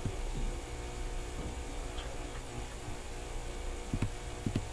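Steady low electrical hum and hiss of a recording microphone, with a few faint clicks near the end.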